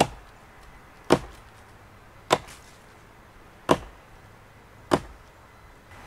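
Axe chopping into the base of a dead tree trunk: five sharp strikes, about one every second and a quarter.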